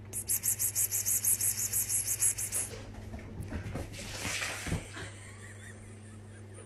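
A person making rapid 'pspsps' hissing sounds to call a cat, about five quick hisses a second for roughly two and a half seconds. It is followed by faint rustling and a soft thump near the end.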